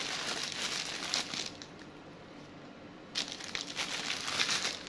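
Black plastic bag crinkling and rustling as hands unwrap a package, with a short lull in the middle.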